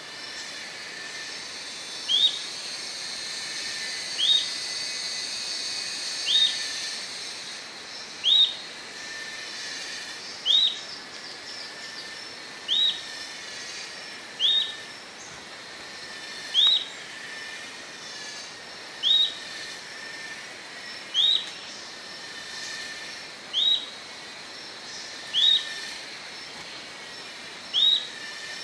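Atlantic royal flycatcher calling: a short, sharp, upward-slurred whistled note repeated about every two seconds, over a steady high-pitched background hiss.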